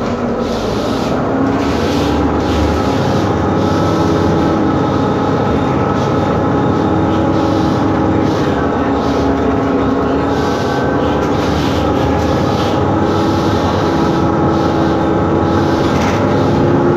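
The 6.7-litre Cummins ISBe turbo diesel of a 2011 BMC Belde city bus running under way, heard from inside the passenger cabin; its note rises and drops as the bus pulls along.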